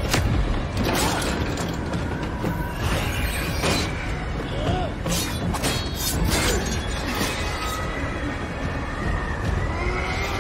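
Action-film sound mix: a heavy steady rumble of air rushing through a breached aircraft cargo hold, with repeated sharp metallic clanks and hits from the fight, under music.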